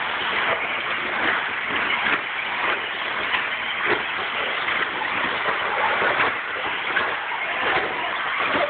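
Several 2WD radio-controlled buggies racing on an indoor dirt track: a steady, noisy drone of motors and tyres on the dirt, with scattered small clicks and knocks.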